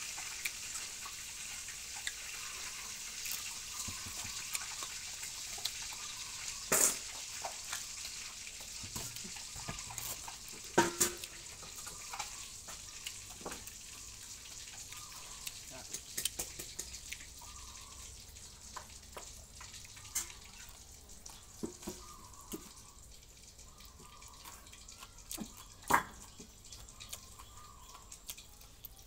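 Eating sounds at close range: wet chewing and smacking of food eaten by hand, over a steady hiss. Scattered short clicks run throughout, with a few sharper ones about 7, 11 and 26 seconds in.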